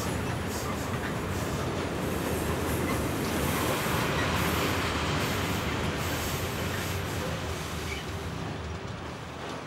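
Freight train of covered wagons rolling along the track, a steady noise of wheels on rails that grows loudest about four seconds in, then slowly fades as the train moves away.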